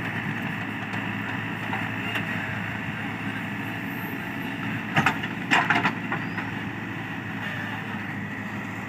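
Diesel engine of a JCB 3DX backhoe loader running steadily while loading soil, with a brief clatter of sharp knocks about five seconds in.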